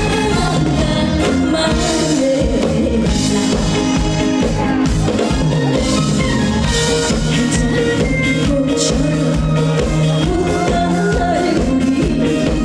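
A woman singing a trot song live over a band with a drum kit keeping a steady beat.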